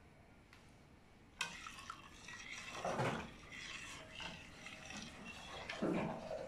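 A metal spoon stirring rice in bubbling water in a stainless steel pot, knocking and scraping against the pot, starting suddenly about a second and a half in after a faint hiss, with two louder knocks.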